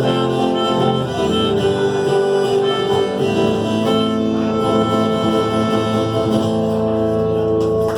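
Instrumental music with long held melody notes over a steady accompaniment.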